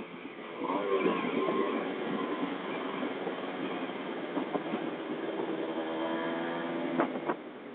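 Kawasaki Ninja motorcycle engine running under way: it picks up about a second in, then holds a steady, even drone, with a couple of sharp knocks near the end.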